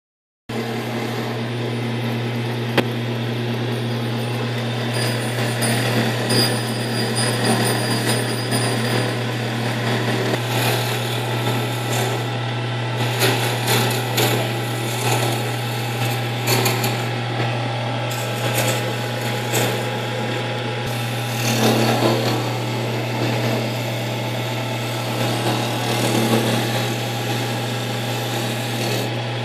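Lathe motor running with a steady low hum while a drill bit bores into an Amboyna burl duck call blank, giving irregular bursts of scraping cutting noise.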